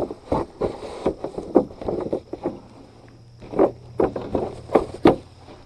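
Irregular clicks, knocks and rustling from hands handling a plastic tree tube and its clips in thick grass, with a low hum joining about halfway.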